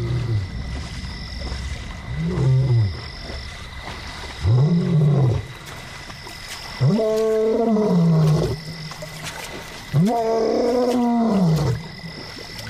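Male lion roaring: four calls, each longer and louder than the last, the last two full drawn-out roars. They are long-distance contact calls to a missing companion.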